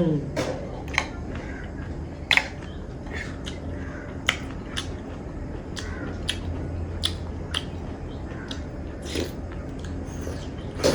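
Close-up mouth sounds of eating spiced citron (nibuwa sadheko): sharp, irregular wet clicks and smacks of chewing and biting, every half second to a second, over a steady low hum.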